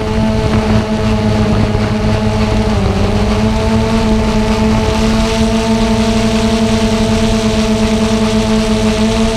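Xiro Explorer G quadcopter's motors and propellers humming steadily while it flies, heard through its onboard camera. About three seconds in, the pitch dips briefly and then settles a little higher as the motors change speed.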